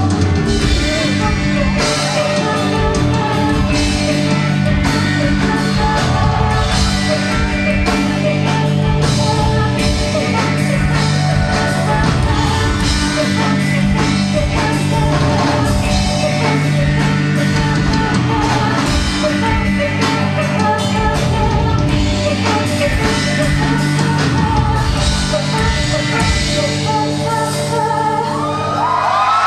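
Live rock band playing loud and steady: drum kit, electric guitars and bass, with singing. Near the end a few high gliding tones rise and fall over the band.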